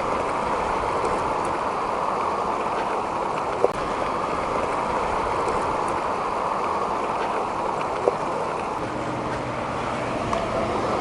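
Steady rush of wind and tyre noise from a KTM Duke 390 motorcycle coasting with its engine dead, out of fuel, with two small clicks along the way.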